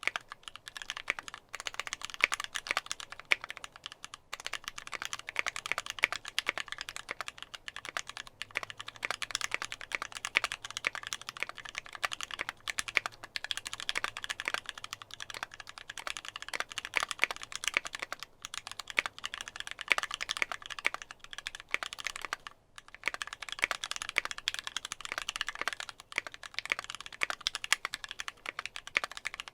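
Fast continuous typing on a mechanical keyboard with lubed Gateron Ink linear switches on ThicThock MP 68 springs, GMK keycaps on an aluminium plate, with a couple of brief pauses.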